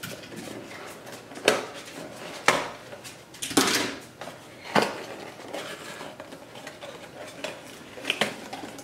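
Hard plastic packaging of a GoPro camera being pried and pulled apart by hand. About five sharp clicks and knocks come a second or so apart, with a longer rasp about three and a half seconds in.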